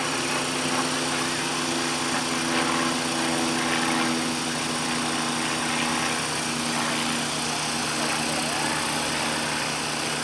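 A small engine running steadily at a nearly constant pitch, over a steady background hiss.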